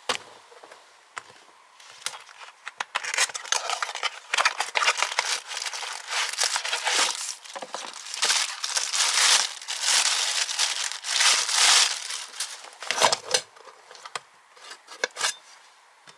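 Plastic wrapping crinkled and rustled by hand in irregular bursts, with sharp crackles, busiest in the middle and thinning out near the end.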